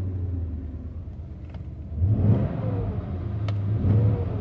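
BMW E38 7 Series engine running just after start-up, idling steadily and revved twice, about two seconds in and again near the end.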